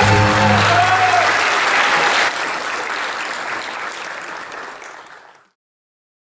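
Audience applause at the end of a performance, dying away over the last few seconds and stopping about five and a half seconds in.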